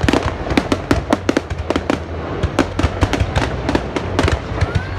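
Fireworks going off in a dense, irregular barrage of bangs and crackles, several a second, over a steady low rumble. A short rising whistle comes near the end.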